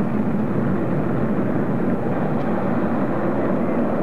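Steady jet noise from a B-1B Lancer's four General Electric F101 turbofans as the bomber banks through a turn in flight.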